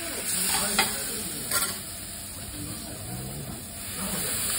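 Beef steak sizzling on a hot teppanyaki steel griddle, with a few sharp metal clicks and scrapes of a spatula early on. Near the end the hiss grows louder as liquid is poured onto the hot plate and steams.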